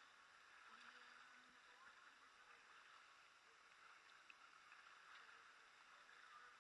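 Faint water sounds of a Riot Edge 11 kayak being paddled on calm sea: paddle strokes and water lapping at the hull, very quiet throughout.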